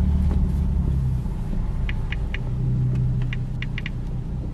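Straight-piped Lexus IS250's V6 running at low engine speed, a steady low drone heard from inside the cabin. A few light clicks come in the middle.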